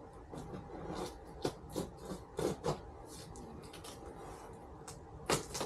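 Cardboard shipping box being worked open by hand: a series of short scratchy scrapes and rubs of cardboard, a few sharper strokes about one and a half to three seconds in and again near the end.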